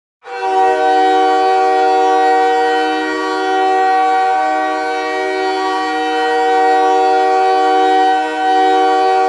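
Montreal Canadiens' ice hockey goal horn sounding one long unbroken blast, several steady tones together in a chord. It starts abruptly and stays loud and steady.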